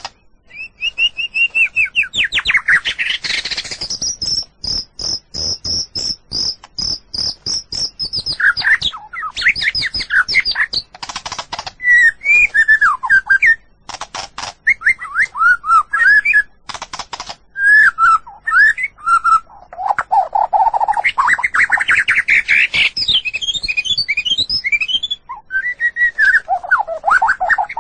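White-rumped shama singing a long, varied song. Rapid trills, fast runs of high repeated notes with clicking rattles, and whistled phrases follow each other without a break.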